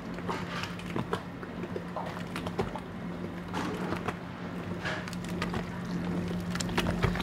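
Konjac paste being kneaded in a mixing trough by the 'bata-neri' method: a machine hums steadily while the thick paste makes irregular flapping, slapping noises ('bata-bata'). The slapping works a mass of tiny air bubbles into the konnyaku.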